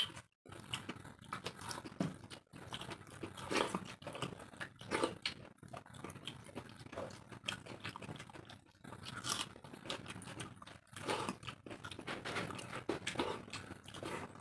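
Two people eating panta bhat, rice soaked in water, by hand: chewing and mouth noises come in irregular short strokes, with no talk.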